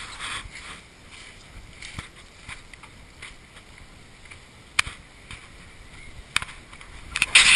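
Rustling handling noise from a moving handheld camera, with sharp clicks about five and six and a half seconds in and a louder scrape near the end.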